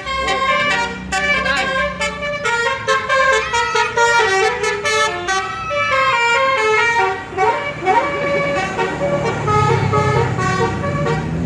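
Basuri Winspector telolet bus horn playing a multi-tone melody, its notes stepping up and down several times a second. A low hum comes in under it near the end.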